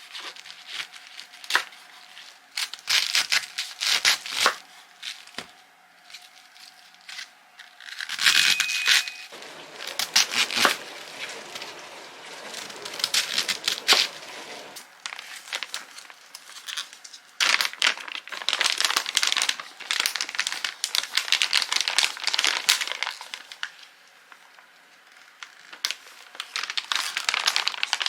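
Packaging crinkling and rustling in irregular bursts, with sharp crackles, as it is handled and torn.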